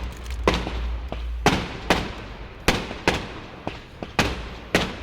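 Fireworks display going off: a string of sharp bangs from exploding aerial shells, about one to two a second, over a steady crackle and rumble.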